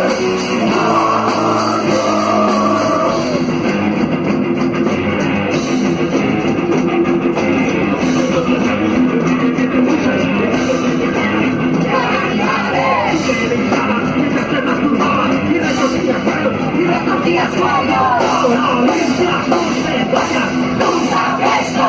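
Ska-rock band playing loud and steady: electric guitar, bass and drums with regular cymbal strokes, and some singing or shouted vocals.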